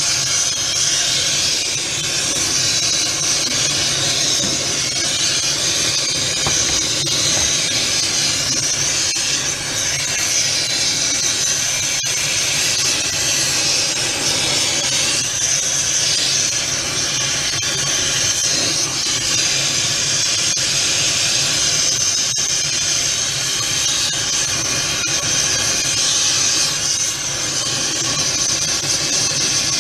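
Oxy-fuel torch flame burning with a steady hiss as it heats brass in a crucible.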